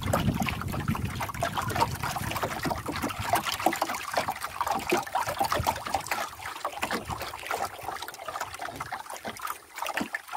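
Small waves lapping and trickling against the hull of a wooden canoe, many quick irregular splashes. A low wind rumble on the microphone fades after about two seconds.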